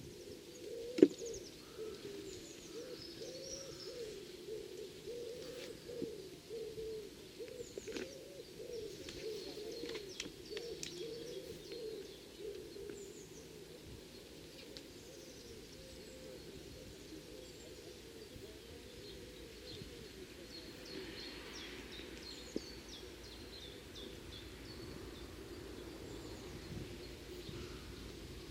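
Faint outdoor birdsong: small birds chirping and whistling over a low, repeated cooing, which fits a pigeon or dove. A single sharp click about a second in.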